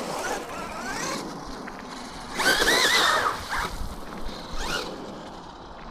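Electric RC car motor whining, rising and falling in pitch as the car speeds up and slows, loudest about two and a half seconds in.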